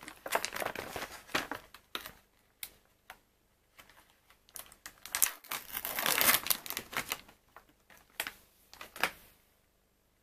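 Plastic sausage packaging crinkling and crackling as it is handled and its clear film lid is peeled back from the tray, in two long spells with two sharp crackles near the end.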